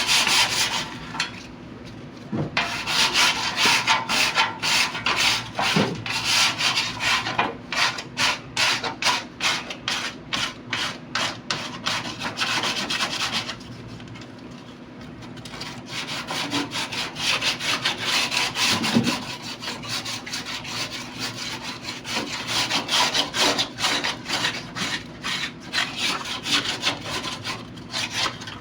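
Abrasive rubbing by hand in quick back-and-forth strokes, about two to three a second, as rust is worked off the old air conditioner's parts. The strokes break off for a couple of seconds near the middle.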